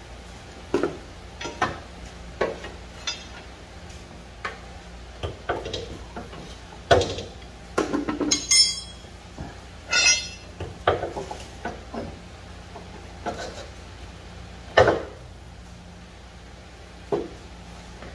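Irregular metal clanks and clinks of hand tools and a front CV axle being worked loose and pulled under a car, about a dozen knocks, two of them with a short high metallic ring about eight and a half and ten seconds in.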